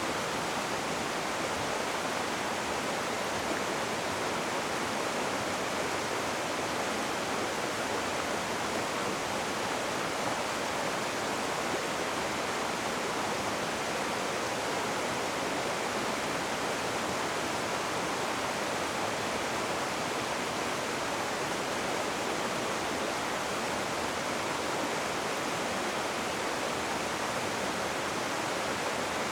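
Rushing river water: a steady, even rush with no breaks or separate splashes.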